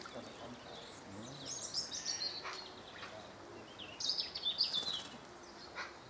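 Small garden songbirds chirping and singing in short high phrases, twice, the louder burst about four seconds in, with a few light splashes of water from a white dove bathing in a bird bath.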